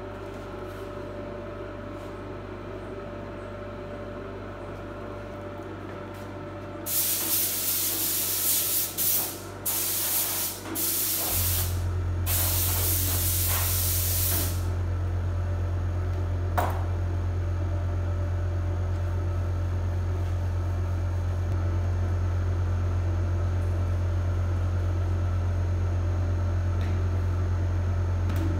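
Compressed-air paint spray gun spraying in about four hissing bursts, the longest about two seconds, as blue paint goes onto a metal sheet. Under it runs a steady low machine hum that steps up louder partway through. A single sharp click follows a couple of seconds after the spraying.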